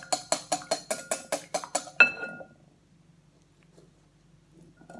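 Wire whisk beating eggs in a glass mixing bowl, clicking against the glass about six times a second. About two seconds in, it ends with one loud clink of the whisk on the glass, which rings briefly, then all is quiet.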